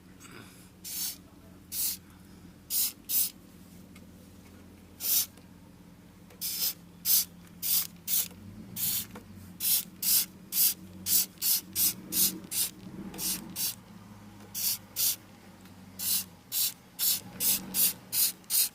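Trigger spray bottle of cleaner squirted over and over, about thirty short hissing squirts, sometimes in quick runs of two or three a second. A low steady hum sits underneath.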